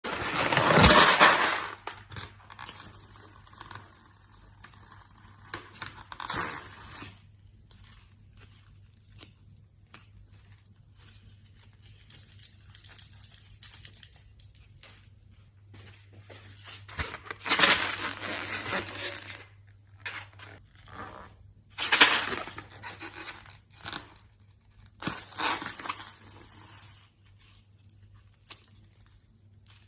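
Close-miked eating: several loud bites and tears of food a few seconds apart, the loudest right at the start, with quieter chewing and small mouth clicks between them. A faint steady hum runs underneath.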